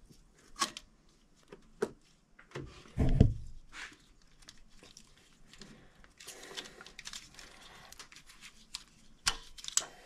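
Old, brittle rubber vacuum hoses and a plastic vacuum-line connector being worked loose by hand in a Jeep Cherokee XJ engine bay. Scattered clicks and crinkly scraping of rubber and plastic, with a louder, lower knock about three seconds in. The lines are perished and broken.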